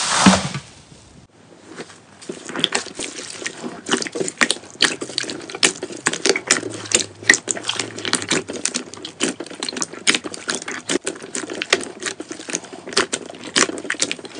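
Glossy slime being poked and pressed with the fingers: a steady run of sharp little clicks and wet pops, several a second, as air pockets burst in it. It opens with one wet slap of a hand pressing soft slime.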